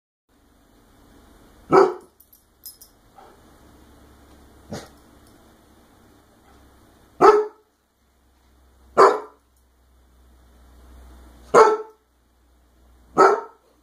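Standard poodle barking six single barks a second or two apart, the second one softer. These are wary barks at balloons he does not trust.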